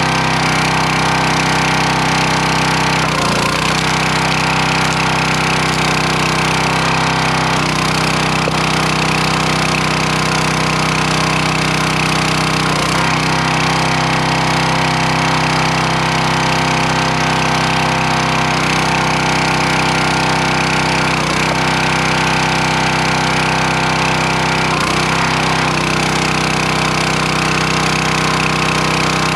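Gas engine of a 25-ton hydraulic log splitter running steadily, its pitch dipping briefly every few seconds as the ram is loaded splitting firewood.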